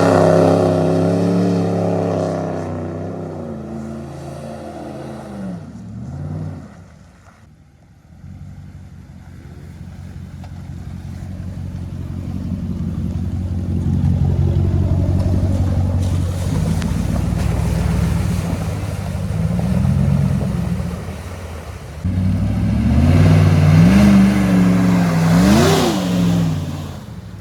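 4x4 pickup truck engine working hard off-road, revving and easing off, fading after a few seconds and then building again, with several sharp revs near the end.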